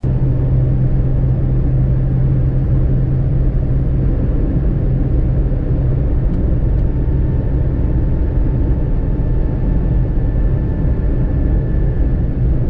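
Car driving along a road: steady engine and road rumble heard from inside the car, with a low hum that eases off about four seconds in.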